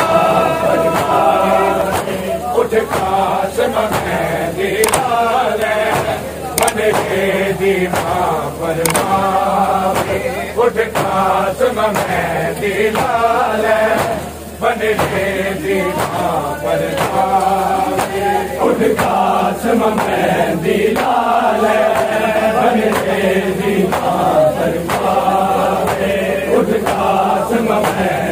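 A group of men chanting a Shia noha (mourning lament) in unison. Sharp slaps of matam (chest-beating) keep a regular beat of about one a second.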